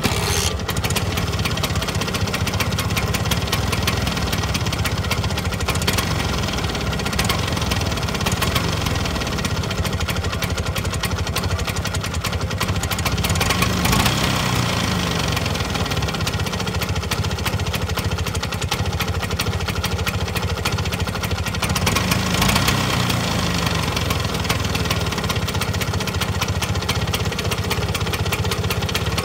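Two-stroke single-cylinder engine of a Bajaj Classic scooter running steadily at idle while its carburettor idle screw is turned with a screwdriver to set a normal idle speed, slow but not so slow that it stalls.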